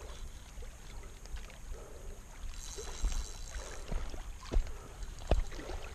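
Handling noise from a spinning rod and reel being worked during a fish fight, over a steady low wind rumble on the microphone, with a brief hiss about three seconds in and a few sharp knocks near the end.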